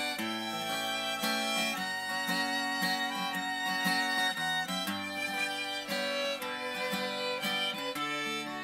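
Fiddle playing a tune over plucked guitar accompaniment.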